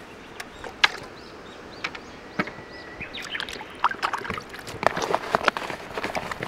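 Small birds chirping in short, high notes, with scattered sharp clicks and light knocks that come thicker in the second half.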